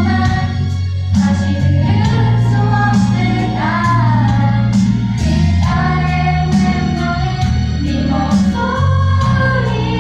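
Music: a sung ballad melody with long held notes over a sustained bass line and a regular beat.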